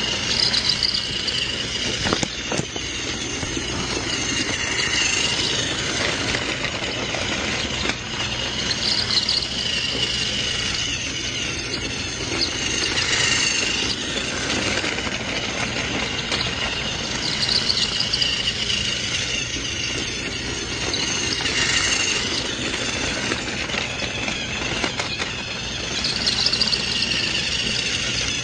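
Motorized toy train running, its small motor whirring steadily with a high whine, and a brighter squeal coming back about every four seconds as it circles the track.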